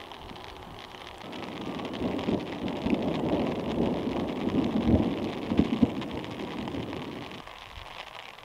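Thunder from a nearby thunderstorm: a rolling rumble that builds about a second in, peaks with a few sharper claps around the middle, and dies away near the end, over a faint steady hiss.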